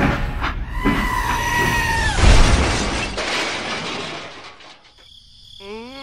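A short held horn blast, then a heavy crash with shattering, clattering debris that dies away over a second or two: a dubbed crash sound effect. Near the end a wavering, groan-like cry begins.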